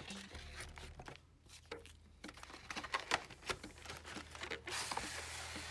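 Cardboard trading-card box being pried open and handled: irregular crinkling, scraping and tearing of card and packaging, with scattered small taps.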